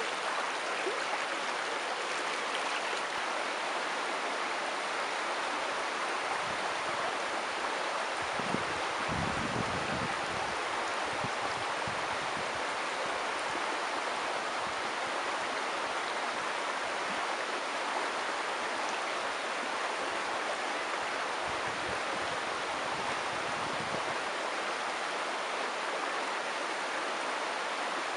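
River water flowing in a steady, even rush. A deeper low rumble swells in twice, about eight seconds in and again about twenty-one seconds in.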